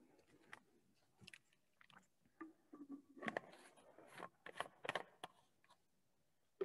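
Faint mouth and handling noises close to a lectern microphone: scattered small clicks and rustles, busiest in the middle few seconds.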